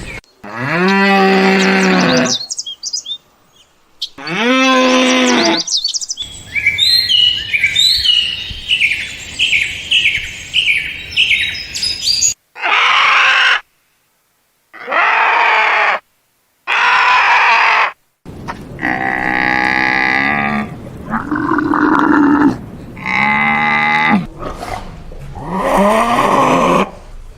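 Farm animal calls in succession, cut one after another: two long pitched calls, then a bird chirping rapidly and repeatedly for several seconds, then a string of shorter animal cries.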